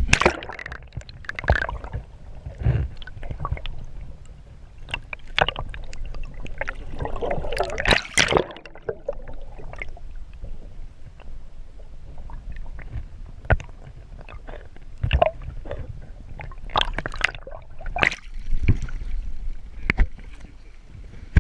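Water sloshing and splashing close to the microphone, with irregular knocks and clicks and a low rumble underneath; the loudest stretch of splashing comes about eight seconds in.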